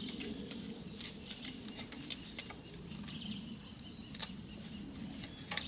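Knife shaving and splitting thin bamboo strips by hand: scattered small clicks and scrapes, with one sharper click about four seconds in.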